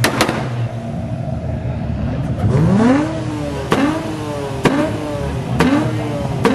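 Car engine idling, then revved repeatedly about once a second from roughly two and a half seconds in. Each rev climbs quickly in pitch, ends in a sharp crack at its peak, and falls back.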